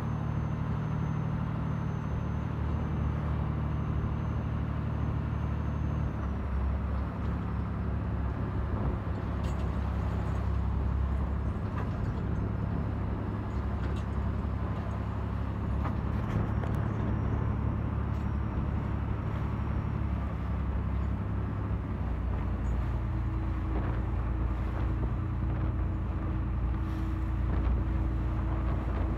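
Fishing trawler's engine running with a steady low drone, its note changing about six seconds in and again about three-quarters of the way through, over a constant hiss.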